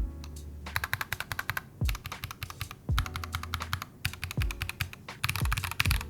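Fast typing on a mechanical keyboard with SA-profile keycaps: quick runs of deep, knocking clacks, broken by a couple of short pauses.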